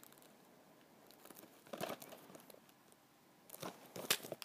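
Paperboard tea boxes being handled: faint rustles, scrapes and light taps, with one group about two seconds in and a louder cluster near the end.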